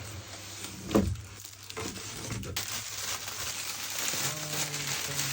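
Packaging being handled and pulled open while a boxed rack compressor is unpacked: steady rustling and crinkling, with a thump about a second in.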